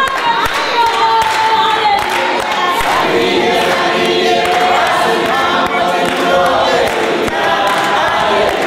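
A choir singing, many voices together holding long, drawn-out notes.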